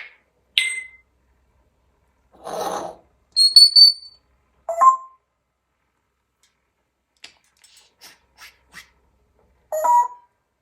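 Pet parrot whistling and calling in short separate bursts. A brief harsh call comes about two and a half seconds in, then a loud high whistle that rises slightly. Two shorter, lower whistled notes follow, one at about five seconds and one near the end, with faint clicking in between.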